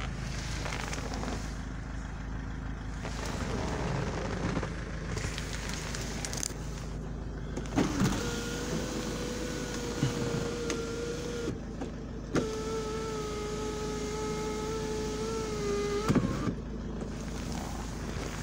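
Electric sunroof motor of a 2006 SsangYong Actyon running twice as the glass panel moves. Each run is a steady whine of about three and a half seconds that starts and stops with a clunk.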